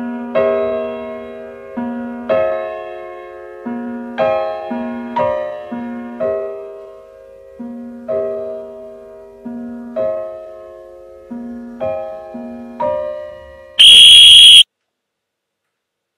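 Slow piano music, chords struck about once a second and left to ring out. Near the end it is cut short by a very loud, harsh buzz lasting under a second.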